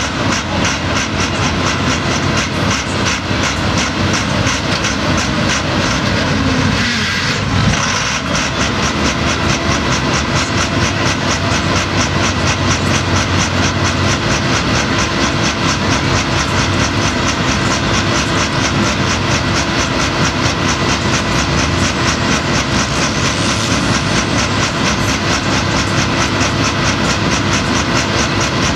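Pulling tractor's engine running loud and steady with a fast, even pulse while it tows a weight-transfer sled. Its note dips briefly about seven seconds in, then settles again.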